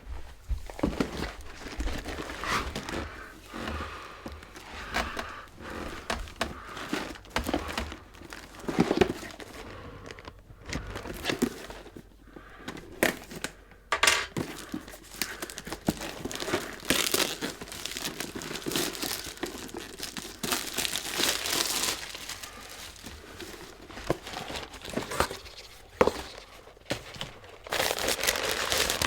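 Packaging crinkling and tearing in irregular bursts as a package is unboxed, with a few sharp clicks.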